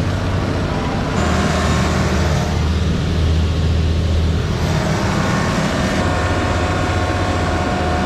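Diesel engines of a LeeBoy 8500 asphalt paver and the dump truck feeding it, running steadily with a deep, even hum. The machinery noise changes in tone about a second in and again around five seconds.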